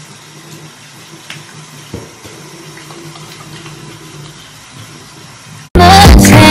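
Bathroom sink tap running steadily with a faint hum under it and a light knock about two seconds in. Near the end, loud electronic music cuts in suddenly and drowns it out.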